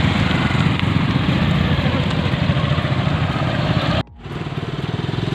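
Motorcycle engines running as motorbikes ride past close by. The sound cuts off abruptly about four seconds in, and another engine comes up again and grows louder.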